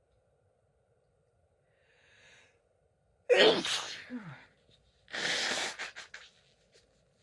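A woman sneezes once, loud and sudden, a little over three seconds in, after a faint breath in, ending in a short falling cry. About two seconds later comes a second, longer forceful burst of air through the nose, followed by a few small clicks.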